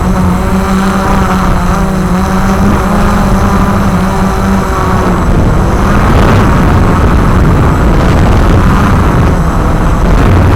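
Walkera QR X350 Pro quadcopter's electric motors and propellers whirring in flight: a steady hum at first, turning louder and rougher after about five seconds.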